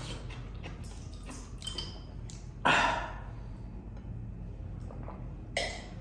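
A man blowing out two sharp breaths, his mouth burning from extremely spicy noodles. The first comes about halfway through and fades over half a second. A shorter one comes near the end, as he drinks from a glass.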